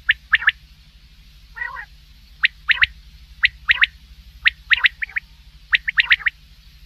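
Common quail calling over and over in short, sharp three-note phrases, about one phrase a second, with one lower, rougher call about a second and a half in. A steady low hum runs underneath.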